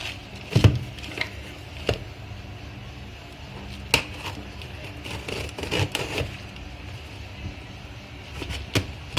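Cardboard box and its packaging being handled and opened by hand: scattered knocks, taps and rustles, the loudest knock about half a second in, over a low steady hum.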